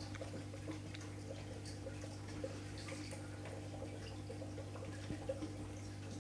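Underwater ambience: a steady low hum with scattered faint clicks and ticks.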